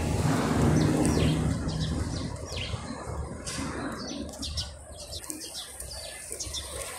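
A flock of pigeons taking off and circling, a rush of many flapping wings loudest in the first two seconds and then fading. Small birds chirp throughout with short, high, falling notes.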